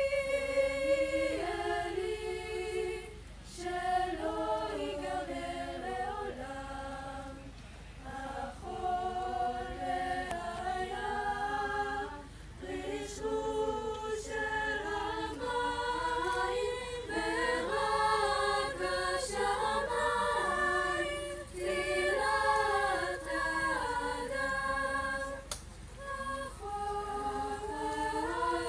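A choir singing a cappella, several voices moving together in harmony, in phrases with brief breaths between them.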